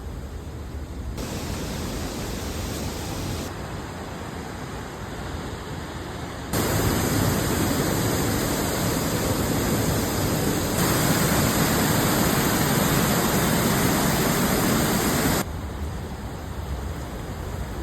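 Steady rushing of falling water from the gorge's waterfalls and stream. It jumps abruptly in loudness several times and is loudest and fullest through the middle third.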